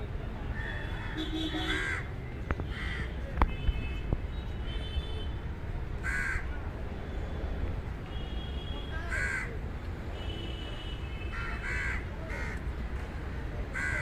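Crows cawing: several short, harsh caws at irregular intervals over a steady low background rumble, with a few sharp clicks a few seconds in.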